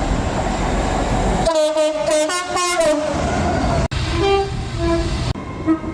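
A passing train rumbles, then its horn sounds several short blasts lasting about a second and a half, stepping between two pitches. After a sudden cut, a train gives a few shorter, fainter horn toots over its running noise.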